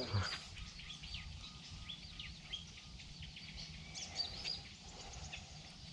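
Birds chirping with many short, repeated high calls over a steady low rumble.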